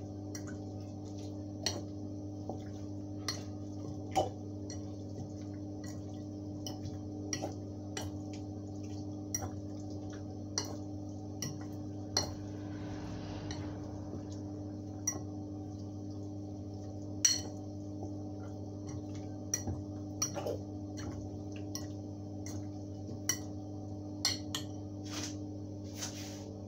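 Metal fork clinking irregularly against a glass mixing bowl, about one sharp clink every second or so, while tossing raw chicken wings in seasoning, with a brief soft rustle about halfway through. A steady low hum runs underneath.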